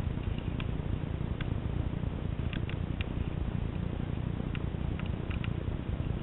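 Steady low rumbling noise on the climber's camera microphone, with about ten faint, irregular clicks scattered through it.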